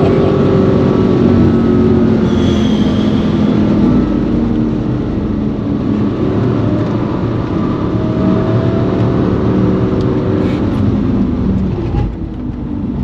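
Mercedes C55 AMG's 5.4-litre V8 running hard under load, heard from inside the cabin over tyre and wind noise. The sound drops about twelve seconds in as the car eases off.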